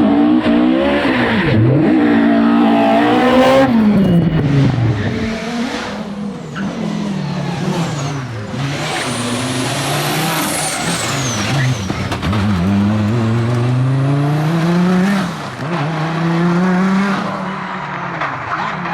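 Rally car engine revving hard, its pitch climbing and dropping several times as it accelerates, shifts and lifts off. A high whistle rises and then falls about halfway through.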